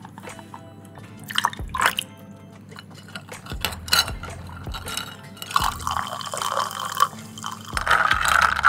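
Liquid poured over ice cubes in a tall glass, then ice clinking and rattling as a bar spoon stirs the drink, over background music.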